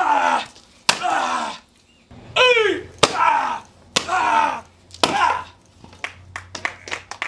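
Wooden boards cracking as they are broken by rapid martial arts strikes: a series of sharp cracks about a second apart, each followed by a loud shout. A quick patter of small clicks near the end.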